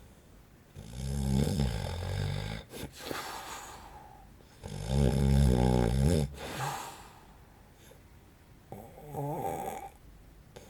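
A man in his forties snoring in his sleep: three snores about four seconds apart, the second the loudest and the last one weaker.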